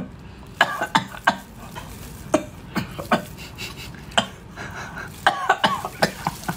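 Close-up eating sounds of a person chewing spicy braised octopus: wet mouth smacks and chewing, with a few short coughs in between.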